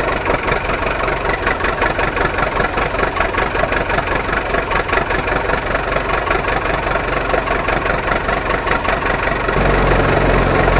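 Tractor engine running steadily with a rapid, even firing beat. Near the end it takes on a stronger, deeper hum and gets slightly louder.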